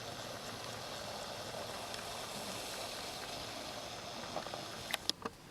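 A steady hiss, with a few sharp clicks near the end.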